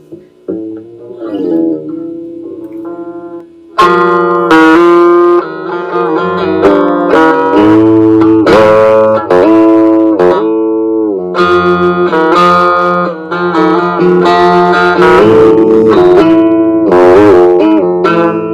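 Instrumental song intro led by guitar: a few quiet plucked notes, then a much louder part with long ringing notes that bend in pitch comes in about four seconds in.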